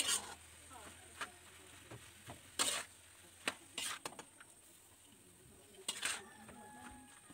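Metal spatula stirring grated coconut in a metal wok, giving short scrapes against the pan at uneven intervals, about six over a few seconds.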